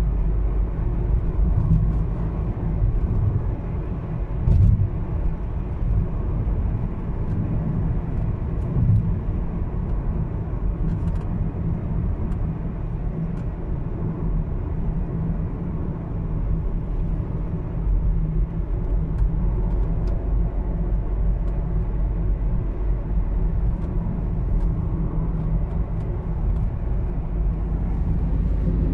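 Steady low road rumble of a car driving, heard from inside the cabin, with a few faint clicks.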